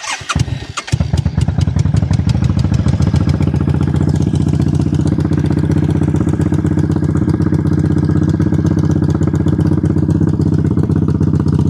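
Suzuki Volusia 800 V-twin engine cranking and catching within about a second, then idling steadily. It is being run after a coolant flush and refill to check everything.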